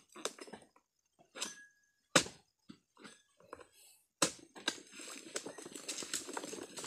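Long-poled harvesting sickle cutting at an oil palm's crown: a few sharp knocks and snaps as the blade hits and cuts through frond stems, then a longer stretch of rustling and crackling from leaves and fronds from about four seconds in.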